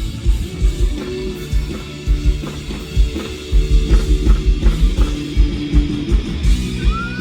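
Live rock band playing an instrumental passage: electric guitar, bass and drum kit, with a steady beat. A yell or whoop rises over the music near the end.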